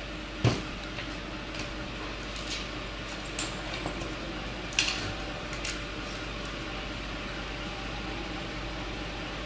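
A few light clicks and taps as a tool and fingers handle the open plastic base and circuit board of a rechargeable table fan, over a steady low hum.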